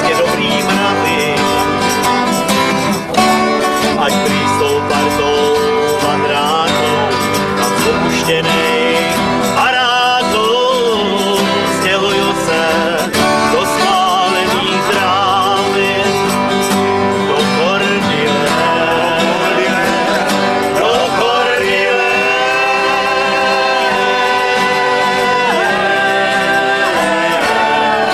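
Country-style song: a voice singing over acoustic guitar and other string instruments.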